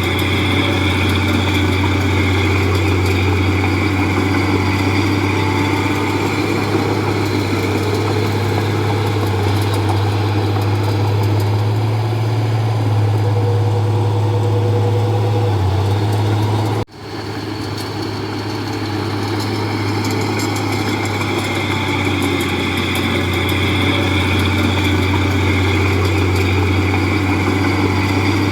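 Bulldozer's diesel engine running steadily, with a strong low hum. The sound cuts out sharply for a moment about seventeen seconds in, then swells back.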